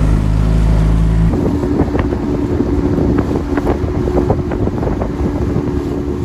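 Wind buffeting the microphone in a low rumble, then, after a cut a little over a second in, a small motorboat running over choppy water: a steady outboard motor drone with the hull slapping on the waves and wind noise.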